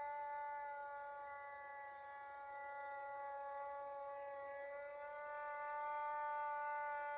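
Hand-crank siren wailing on a steady pitch. It dips slightly in loudness and pitch midway, then swells again near the end.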